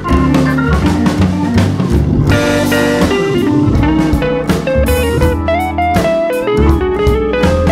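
Background music: a guitar-led tune with drums.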